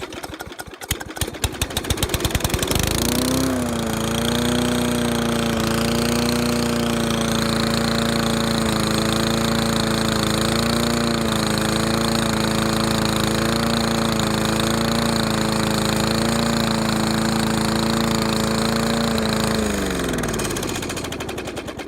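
Old Briggs & Stratton side-valve push-mower engine catching on the pull, speeding up over about three seconds, then running fast and loud with a barky exhaust, a little over-revved. Near the end it is shut off, its pitch falling as it winds down to a stop.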